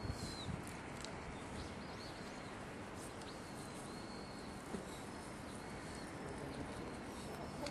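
Steady outdoor background noise at a riverside, with several faint, short, high-pitched chirps coming and going.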